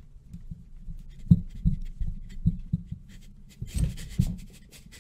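A series of dull, low thumps with some rubbing and rustling, from a person shifting about at a desk close to the microphone; the rustle is strongest near the end.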